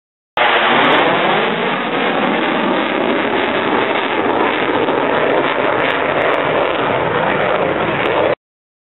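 Jet engine noise of a military fighter jet flying past, a steady loud rushing sound. It starts and cuts off abruptly at edit points.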